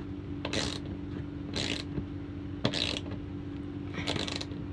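Hand ratchet clicking in four short bursts about a second apart as it turns nuts onto through-deck bolts from underneath. A steady low hum runs under it.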